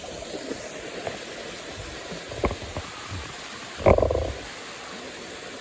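A man breathing hard after climbing steps, with one loud, rough exhale about four seconds in, over the steady rush of nearby falling water. A few light knocks come from handling or footsteps.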